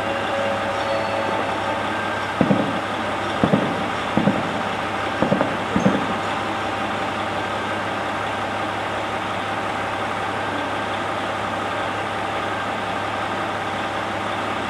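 KiHa 40-series diesel railcar idling at a standstill, a steady engine hum. Between about two and six seconds in come half a dozen short knocks.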